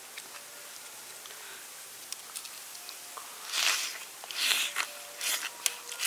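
Slurping a raw oyster with its vegetable and chilli-sauce topping off a spoon and the half shell: three loud, wet slurps in the second half, with a sharp click near the end.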